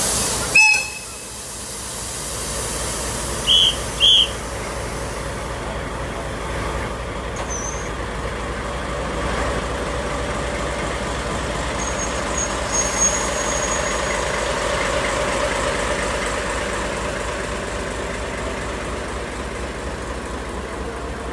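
DE10 diesel locomotive starting a tourist train: an air hiss and a knock, then two short high horn toots about four seconds in. The engine then runs louder as the train pulls slowly away, with a faint high squeal partway through.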